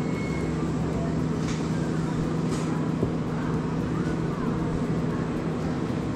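A steady, unchanging motor hum with a low drone, with faint voices in the background.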